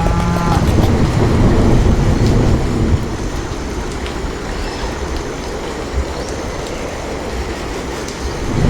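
Strong wind rushing and rumbling steadily, louder for the first three seconds and then easing slightly.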